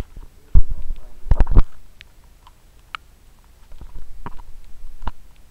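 Handling noise on a small waterproof digital camera held in the hand: heavy muffled thumps and rubbing against the body about half a second and a second and a half in, then scattered light clicks and rustling.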